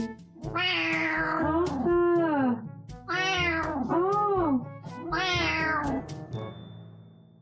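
Domestic cat meowing loudly and insistently: about five long meows in three bursts, each rising and then falling in pitch. Light background music plays underneath.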